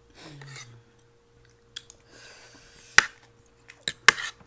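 Eating sounds: soft chewing with a few sharp clicks of spoons and forks against ceramic plates, the loudest click about three seconds in.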